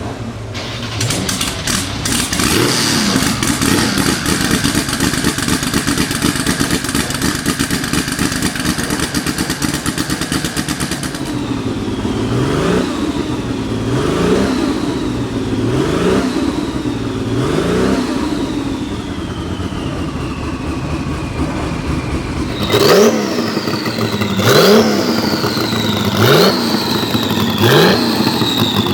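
The 3.2-litre twin-turbo flat-six of a 1979 Porsche 935 Kremer K3 warming up. It runs with a rough, lumpy idle for about the first eleven seconds, then is blipped hard every couple of seconds. Each rev is followed by a high turbo whistle falling in pitch, and the blips come sharper and quicker near the end.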